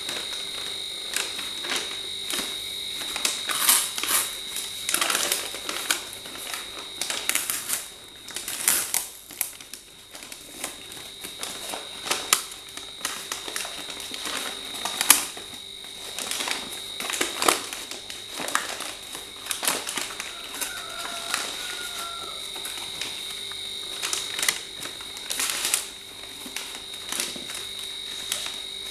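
Brown kraft-paper parcel wrapping being torn and crumpled by hand: irregular rips and crinkling rustles. A steady high tone runs faintly underneath.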